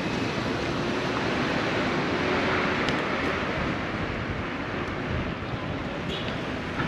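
Wind rushing over the microphone of a moving bicycle, a steady noisy rush that swells a couple of seconds in, with city street traffic underneath.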